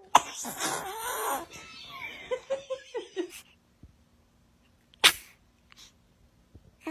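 A baby sneezing: a short, sharp sneeze about five seconds in. Before it, a sharp burst right at the start is followed by a few seconds of baby and adult voice sounds.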